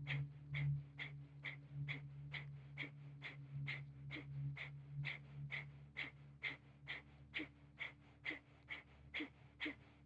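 Rapid, forceful exhalations through the nose in Kapalabhati (breath of fire) breathing: short, sharp puffs of breath at a steady rhythm of a little over two a second.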